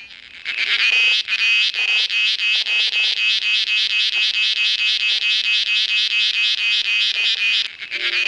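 Cicada calling: a loud, piercing, rapidly pulsing high buzz that starts about half a second in and breaks off briefly near the end before resuming.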